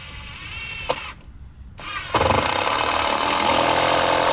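Handheld electric drill running: a short, faint whir with a click about a second in, then a loud, steady run lasting about three seconds from about two seconds in.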